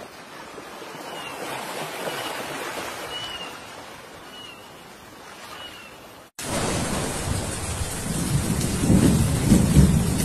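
Open-air sea noise on a boat deck: a steady hiss with a few faint short chirps. After an abrupt cut about six seconds in, louder wind buffets the microphone over rumbling waves.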